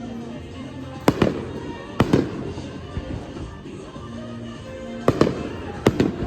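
Aerial fireworks shells bursting: four sharp bangs, two close together about a second apart near the start and two more near the end, each trailing off in an echo. Music plays steadily underneath.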